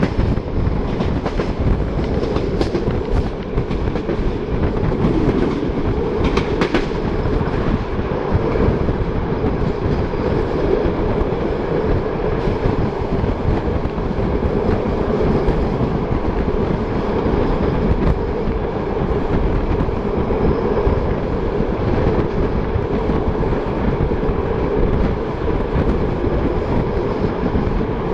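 Passenger train running at speed, heard from an open coach window: a steady rumble of wheels on track mixed with air noise, with a few sharp clicks in the first several seconds.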